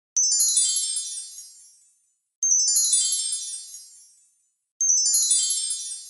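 Fairy magic wand sound effect: a high, tinkling sparkle of many chime tones that starts suddenly and fades away over about two seconds, played three times in a row.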